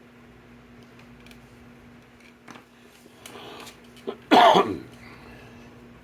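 A man coughs once, a short hoarse cough with falling pitch, about two-thirds of the way through. A few light clicks come before it.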